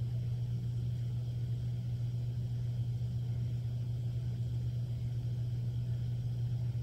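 A steady low hum with faint hiss, unchanging throughout.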